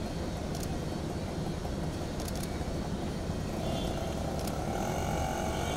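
Steady low outdoor rumble, of the kind PANN files under vehicles, with a few short, sharp clicks of camera shutters, one cluster of them in quick succession about two seconds in.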